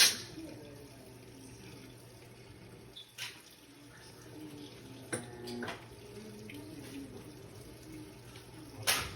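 Maytag washing machine running as water pours in, with a faint wavering screech as the drum turns, a noise whose cause the owners don't know. A few sharp clicks about 3, 5 and 9 seconds in.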